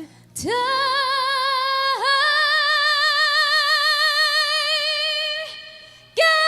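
A female pop singer holding a long high sung note with a steady vibrato, re-attacked about two seconds in. The note fades out near the end, and a new note begins just before the end.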